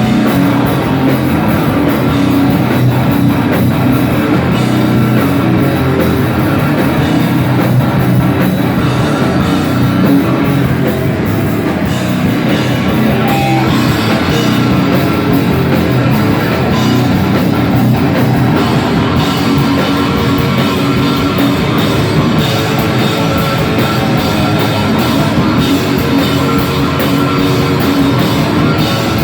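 Heavy metal band playing live, with distorted guitars, bass and a pounding drum kit, loud and unbroken.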